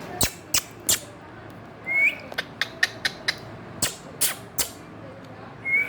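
Indian ringneck parrot making sharp clicks in irregular runs, with a brief rising chirp about two seconds in and another near the end.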